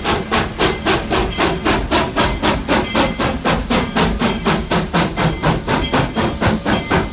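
Steam locomotive No. 40, a 2-8-0, working under steam with a steady, even chuff of exhaust beats, about five a second.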